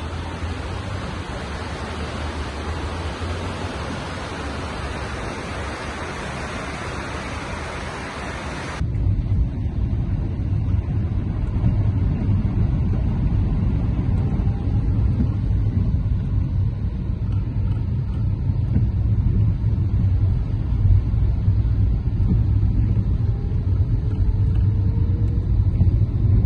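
A steady hiss of rain and water. About nine seconds in it cuts to the low, steady rumble of a car driving on a wet road, heard from inside the cabin, with the engine note rising slightly near the end.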